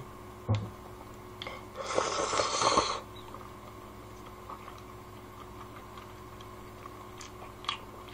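Kalguksu noodles slurped into the mouth in one noisy draw lasting about a second, starting about two seconds in. Around it there is only a soft thump near the start and a few faint clicks.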